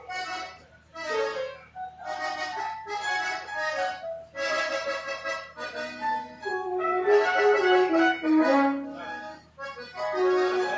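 Live band music led by an accordion-toned instrument, playing a melody of short notes and chords that moves into longer held notes in the second half.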